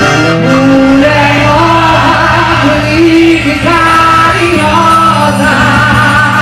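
Loud live band music playing a melody over a steady bass line.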